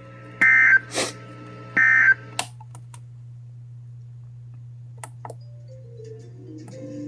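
Emergency Alert System end-of-message data bursts: two short bursts of warbling digital tones about a second and a half apart, closing a flash flood warning, over a steady low hum. Soft music starts near the end.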